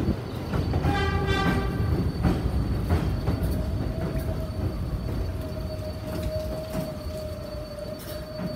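An R142A subway train rolling along the platform, with a low rumble and clicks from the wheels. About three seconds in, a steady high whine sets in and holds.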